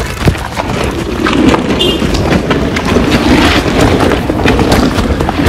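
Street noise: wind rumbling on the microphone over passing traffic, with scattered clicks and knocks throughout.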